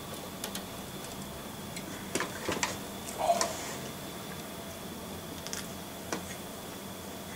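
A few light clicks and taps from a computer mouse and a drinks can being handled, with a short sip from the can about three seconds in. A faint, steady high whine runs underneath.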